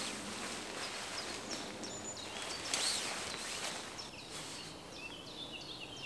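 Several birds singing and chirping, with the rain fly of a dome tent rustling as it is pulled over the tent, loudest about three seconds in.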